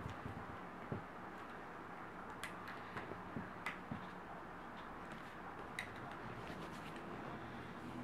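Light, irregular clicks and ticks of a plastic hook working rubber bands over the pegs of a plastic rainbow loom, a few of them sharper, over a steady faint hiss.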